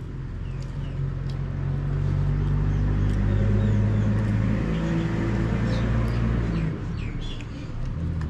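A motor vehicle's engine running nearby, growing louder and then dropping off about seven seconds in, with birds chirping.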